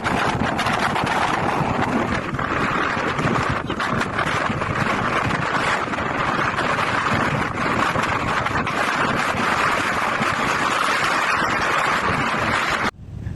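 Hurricane-force wind blasting over the microphone, a loud, dense, steady rush of noise that cuts off suddenly near the end.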